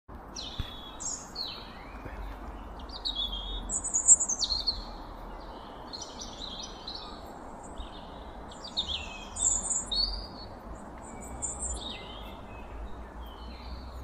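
Garden songbirds singing and chirping, with many short, high calls and song phrases, some falling in pitch, one after another over a faint low background rumble.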